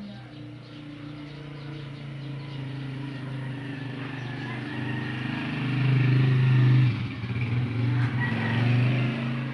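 A motor vehicle's engine running with a steady low hum, growing louder to a peak about six seconds in and again near the end.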